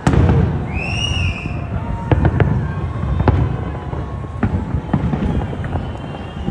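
Fireworks going off: a loud boom at the start, a short high whistle about a second in, then a run of sharp crackling pops over a low rumble.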